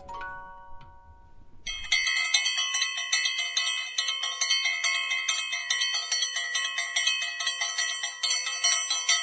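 Background music: a few fading chime-like notes, then from about two seconds in a bright bell-like ringing struck rapidly over and over, which stops at the end.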